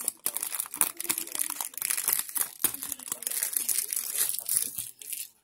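Clear plastic wrapping being crinkled and torn off a small plastic box, a dense run of rapid crackles that stops shortly before the end.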